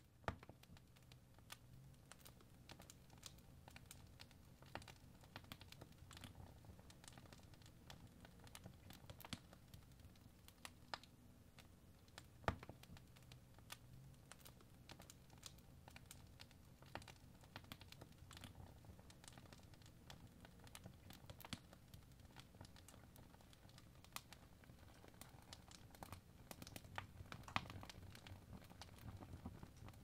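Fireplace fire crackling faintly, with irregular sharp pops over a low steady rumble of the flames. The loudest pop comes a little before halfway.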